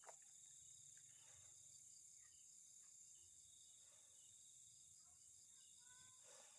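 Faint night chorus of crickets and other insects: several steady high trills held without a break.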